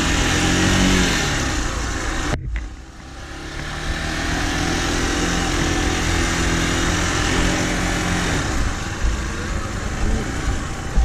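Motorcycle engine running at low, steady revs as the bike is ridden slowly up a muddy dirt track, with a steady hiss behind it. The sound cuts out for a moment about two and a half seconds in.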